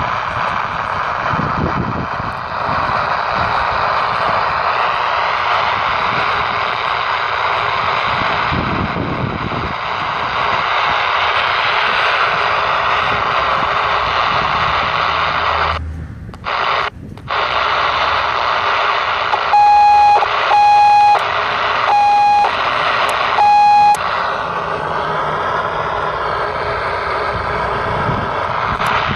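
Emperor P-3203 CB walkie-talkie speaker hissing loud, steady static. The static drops out twice, briefly, about halfway through, then four short beeps of one steady pitch sound in a row.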